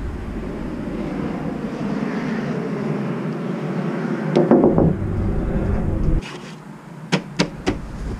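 Knuckles rapping on a house window pane, sharp knocks in a cluster about midway and three more near the end. A steady rushing noise runs underneath and drops away about six seconds in.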